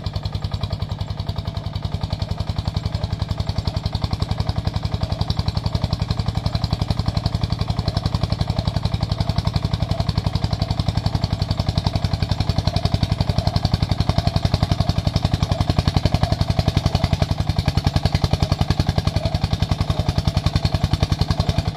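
Single-cylinder diesel engine of a công nông two-axle-drive farm tractor running steadily under load, pulling a trailer piled with rubber-tree stumps. It gives a rapid, even thudding that grows a little louder as the tractor comes closer.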